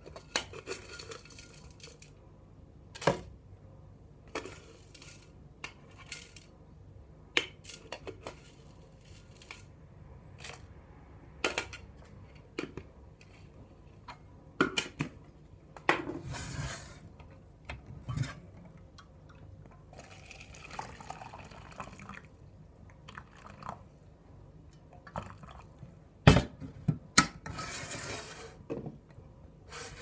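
Scattered taps, clicks and rustles of tea-making handling: loose-leaf tea tipped from a metal tin into a plastic tea infuser, with the tin and lid knocking. A cluster of loud sharp clicks comes near the end.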